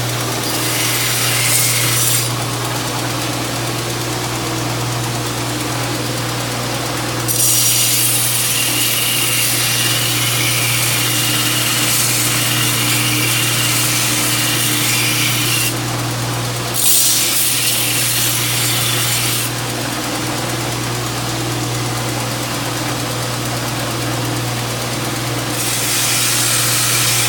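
Homemade grinder's electric motor running with a steady low hum, broken by four spells of grinding where a workpiece is pressed against it, making a loud rasping hiss. The longest spell lasts about eight seconds in the middle.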